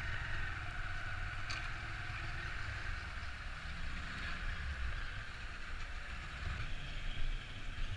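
A car driving slowly: a steady low engine and road rumble with wind hiss on a camera mounted on its roof.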